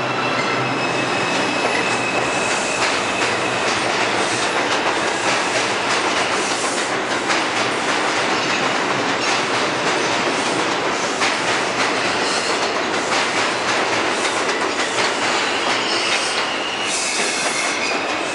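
New York City subway R142 train pulling out of an underground station: steady wheel-on-rail rumble with repeated clicks from the rail joints as the cars roll past. A high, steady wheel squeal is heard at the start and again near the end.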